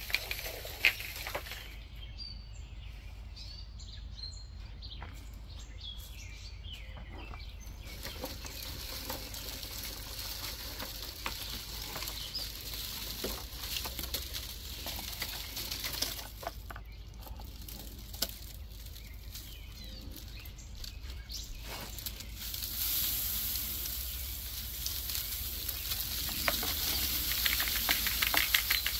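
Dry poppy stalks and seed pods rustling and crackling as a bundle is gathered by hand, with scattered small snaps. In the last few seconds the upturned seed heads are shaken over a plastic tub in a quick rhythm of about four shakes a second, the poppy seeds rattling out in a patter.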